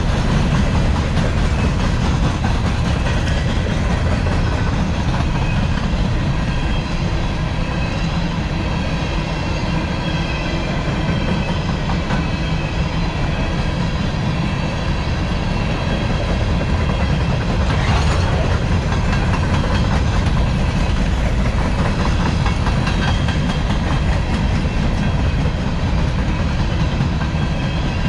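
Empty coal hopper cars of a freight train rolling past at close range: a steady rumble and clatter of steel wheels on the rails.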